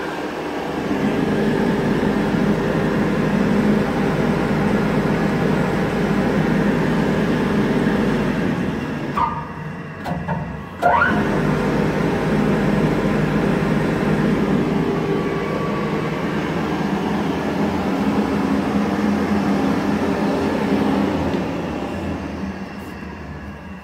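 Alexanderwerk SMZ 35/106 cutter/grinder running under its two-speed electric motor, a steady mechanical hum with several tones. About nine seconds in the sound drops for a moment, then climbs back with a rising whine as the motor spins up again. It eases off slightly near the end.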